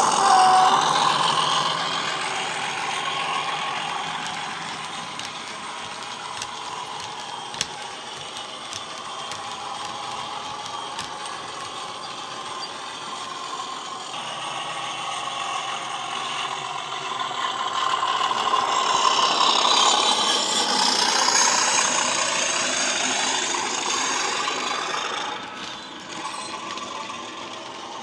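DCC sound of an English Electric Class 37 diesel engine, played through a model locomotive's speaker, running as the model hauls wagons past. It is loudest at first and fades as the train draws away. It swells again in the second half and drops back shortly before the end, with the light clicking of small model wheels on the track.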